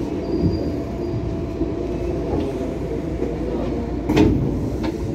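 Inside a Tokyo Metro 6000 series commuter car: the car's equipment drones and hums steadily with a few steady tones. One knock comes about four seconds in.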